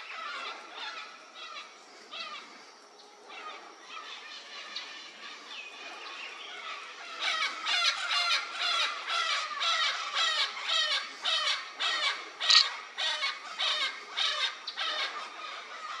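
Vinaceous-breasted parrots (Amazona vinacea) calling: scattered calls at first, then from about seven seconds in a fast, louder run of repeated calls, about two or three a second, with one loudest call near the end.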